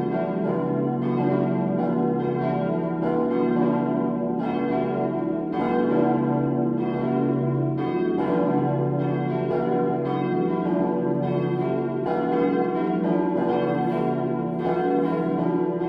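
Full peal of four 1922 cast-steel church bells, tuned B, D, E and F-sharp, swinging together in a continuous, overlapping clang of strikes. The deep B bell stands out clearly above the others. The peal suffers from unfavourable voicing, and the uploader notes that the D bell's clapper strikes mostly on one side only.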